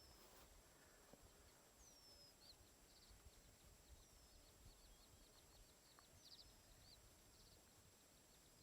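Faint birdsong in near quiet: short falling whistles about every two seconds, with quick runs of high chirps between them.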